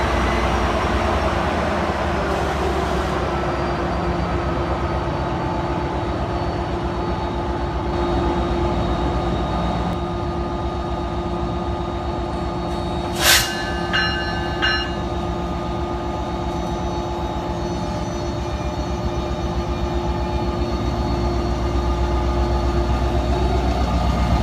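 An Alstom PL42AC diesel-electric locomotive running, its EMD 16-710G prime mover giving a low rapid pulse under the steady whine of its IGBT traction inverters and AC traction motors. About thirteen seconds in comes one sharp metallic clank with brief ringing, then two fainter ones.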